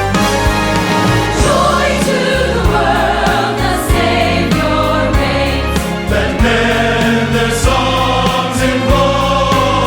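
Large choir singing with a full orchestra, over a steady bass line and a regular beat.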